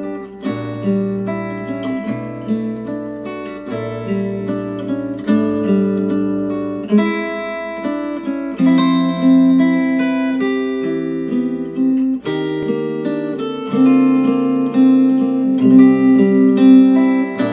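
Instrumental acoustic guitar music, plucked and strummed chords changing about every second, played back through Wharfedale Diamond 12.2 bookshelf speakers.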